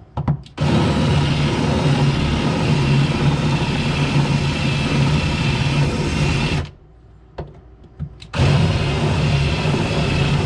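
Cordless drill with a step drill bit running steadily under light pressure, drilling the heads off old pop rivets in a steel floor plate. It stops for about a second and a half after some six seconds, with a click or two, then starts again.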